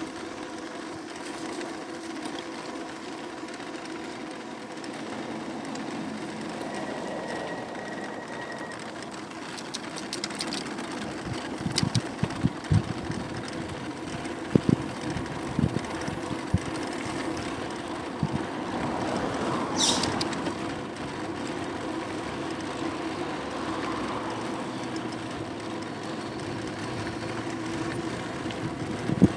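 Riding noise from an Aostirmotor S17 e-bike: a steady whine from its electric motor over a rush of wind and tyre noise. About halfway through comes a run of sharp knocks and rattles, and a short hiss follows a few seconds later.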